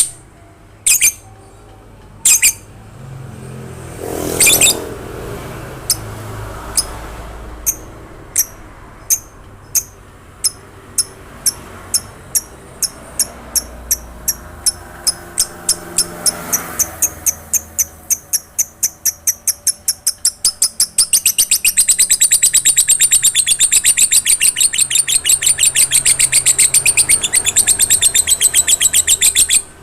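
Lovebird calling: sharp high chirps, sparse at first and coming ever faster, which about two-thirds of the way through run together into a long, rapid, trilling chatter.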